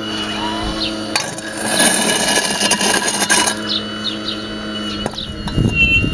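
Radio-controlled scale model Hitachi 870 hydraulic excavator working: its hydraulic pump runs steadily while the bucket moves through broken concrete rubble, with gritty scraping from about a second in and a crunch near the end.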